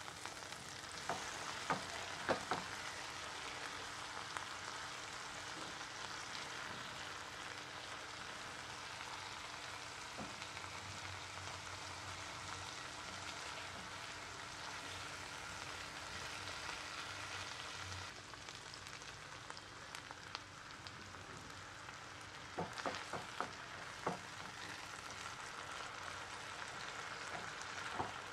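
Onions, green chillies and tomatoes sizzling steadily in oil in a non-stick pan while a silicone spatula stirs them. The spatula clicks and knocks against the pan a few times near the start and again near the end.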